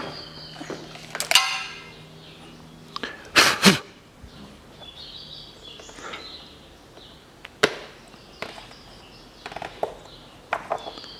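Hands working over an engine's valve cover, unscrewing the plastic oil filler cap: scattered clicks and knocks, with two louder rasps in the first four seconds. Birds chirp faintly in the background.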